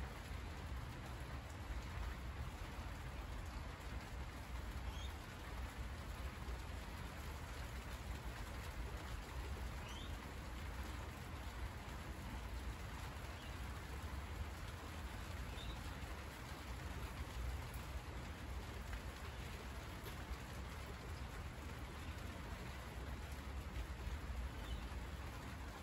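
Steady rain falling on the broad leaves of monstera plants, with a few faint, short high chirps now and then.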